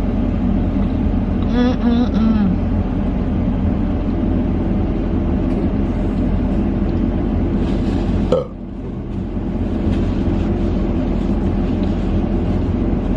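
A steady low rumble throughout, with a brief voice about two seconds in and a sudden click and short dip in level a little past the middle.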